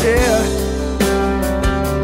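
Background music: a slow Portuguese-language ballad about a father. A sung note bends and fades near the start, then the instrumental accompaniment carries on with sustained notes.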